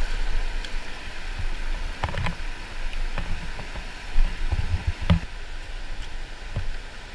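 Steady rushing noise of a small boat moving on river water, with a low rumble under it and scattered knocks and thumps.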